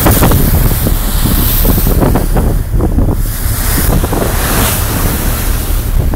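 Strong wind buffeting the microphone in uneven gusts on an open ferry deck, over the rushing wash of choppy water along the moving hull.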